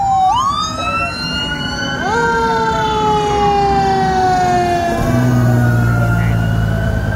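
Fire apparatus sirens wailing and yelping as the trucks pass, several tones rising and falling over one another, a sharp rise about two seconds in. From about five seconds in, the low drone of the passing Spartan Gladiator/E-One pumper's diesel engine joins the sirens.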